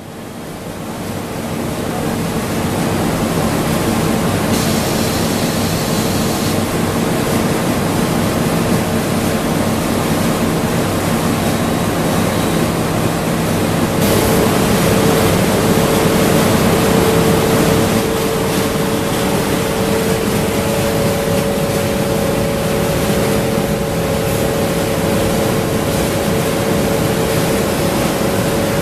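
Macro high-speed PVC cling film cast line running: a steady industrial hiss and hum with a few constant tones. It fades in over the first two seconds and grows a little louder for a few seconds in the middle.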